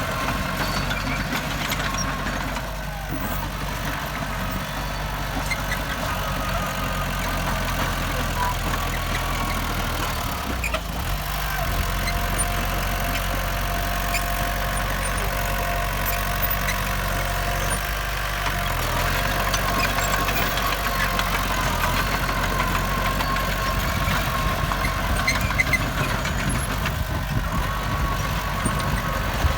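Diesel engines of heavy earthmoving machinery running steadily.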